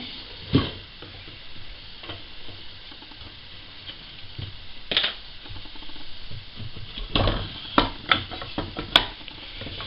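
Wooden tape-dispenser reel being handled on its pole: a few scattered knocks and clicks over a steady hiss.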